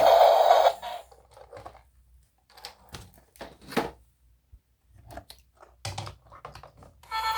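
Scattered light clicks and taps from plastic toy vehicles being handled, after a loud steady noise cuts off within the first second; music starts near the end.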